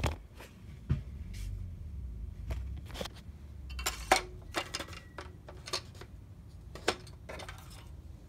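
Irregular light clicks, clinks and knocks, a dozen or so over several seconds, the loudest about four seconds in: the metal dipstick and the plastic oil bottle being handled while checking the oil level of a lawn tractor engine.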